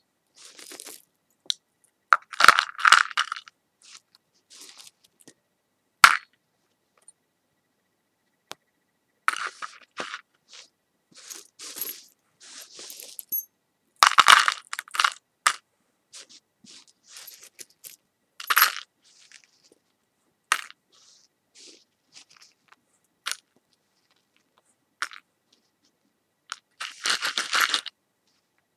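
Close-up ASMR handling sounds: irregular short crunches, scrapes and sharp clicks with brief silences between them, the sharpest click about six seconds in.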